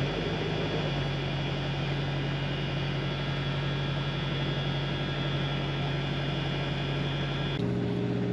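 The inboard engine of a 1984 Ericson 381 sloop running at a steady speed while the boat motors: an even, unchanging drone with a low hum and many overtones. Its tone shifts near the end.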